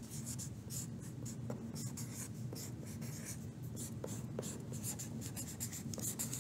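Green Sharpie felt-tip marker writing on paper: many short, quick scratching strokes as letters are formed, over a faint steady low hum.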